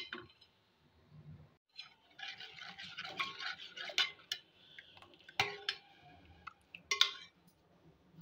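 A steel spoon stirring a runny mixture of mango pulp and milk in a bowl, with wet scraping and sloshing and a few sharp clinks of spoon against the bowl.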